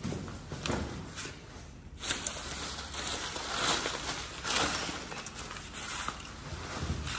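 Plastic bubble wrap crinkling and rustling in irregular bursts as it is handled and stuffed into a foam shipping box as padding.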